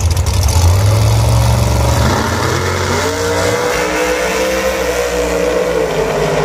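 Two drag-racing cars launching from the starting line and accelerating down the strip. Their engines drone low at first, then about two seconds in the pitch climbs steadily as the cars pull away, levelling off near the end.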